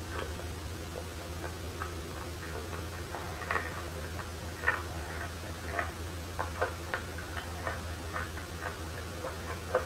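Close-up eating sounds: chewing and biting food, heard as irregular crisp clicks and crackles, over a steady low hum.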